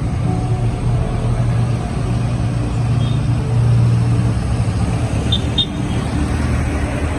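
Motorcycle engine running steadily at low speed amid street traffic. Two brief high chirps come about five seconds in.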